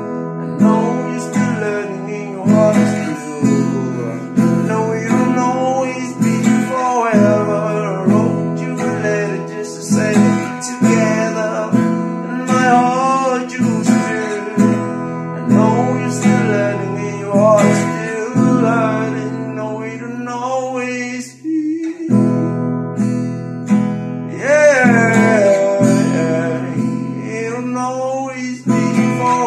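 Acoustic guitar strummed in steady chords, with a man's voice singing a gliding melody over it; the chords break off briefly about two-thirds of the way through.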